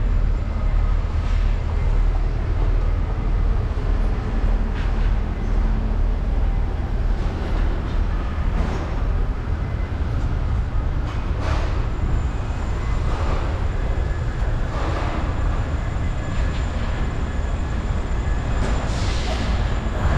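City street traffic with a steady low rumble. A few brief, sharper sounds stand out here and there.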